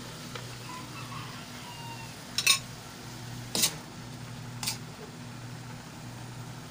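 A metal ladle knocks against the rim and sides of an aluminium wok three times, about a second apart, over a steady low hum.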